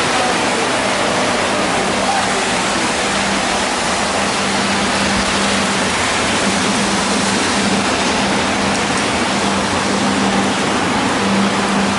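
Steady rumbling din of model trains running on a large layout, with a low hum that comes and goes.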